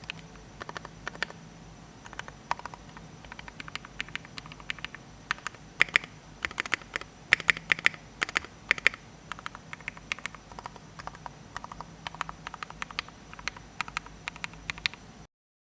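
Typing on a Tofu 60% mechanical keyboard with lubed, retooled Cherry MX Black linear switches on 60 g springs: rapid keystroke clicks in irregular runs, densest around the middle. The sound cuts off abruptly shortly before the end.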